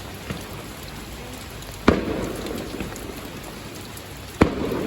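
Two firework bangs about two and a half seconds apart, each followed by a short rumbling echo, over a steady hiss of rain.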